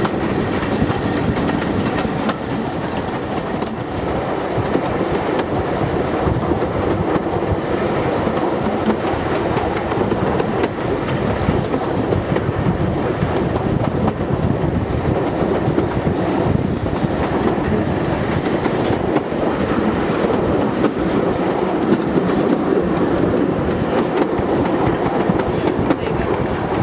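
Steam-hauled heritage passenger train running at speed, heard from an open carriage window: a steady rumble with the wheels clattering over the rail joints.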